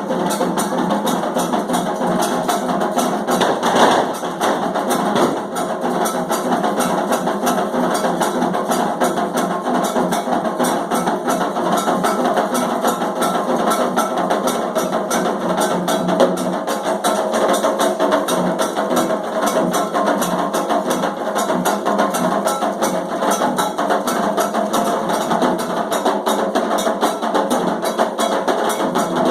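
Candomblé ceremonial drumming: a fast, steady percussion rhythm of drums with a sharp struck beat running through it.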